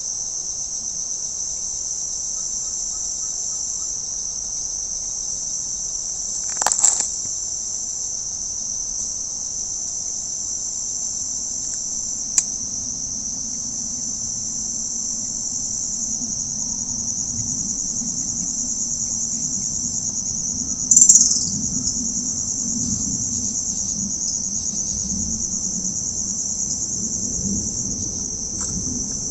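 A steady, high-pitched insect chorus drones without a break. Two brief louder noises come through it, one about seven seconds in and one about twenty-one seconds in.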